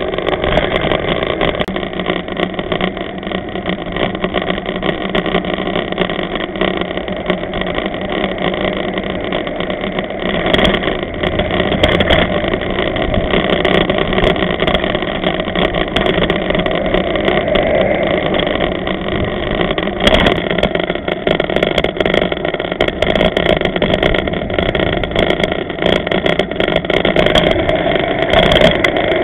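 Steady riding noise from a bicycle-mounted camera's microphone while cycling in traffic: a constant rumbling hiss with a few fixed tones through it, and scattered clicks and rattles in the second half.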